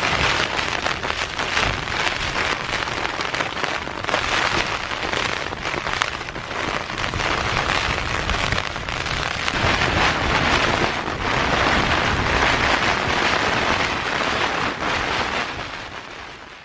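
Heavy wind-driven rain beating on a tent's fabric during a storm: a loud, dense hiss full of sharp taps, swelling and easing with the gusts, fading out right at the end.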